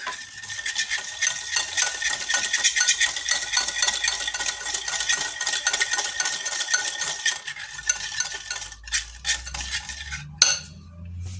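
Wire whisk beating egg yolk, sugar and oil in a bowl, the wires clicking rapidly against the bowl's sides. The strokes slow and thin out after about seven seconds and stop with a final knock near the end.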